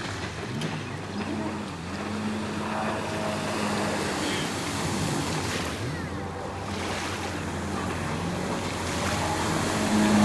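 Jet ski engines running out on the water, their pitch repeatedly rising and falling as the riders throttle up and turn, over a wash of water and wind noise on the microphone.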